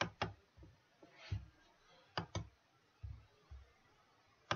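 Computer mouse buttons clicking: three pairs of sharp clicks, each pair about a fifth of a second apart, with a few soft low thumps in between.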